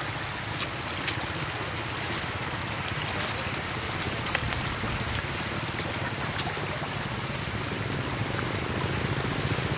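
Shallow floodwater running and rippling over muddy ground, a steady rush with a few brief sharp ticks.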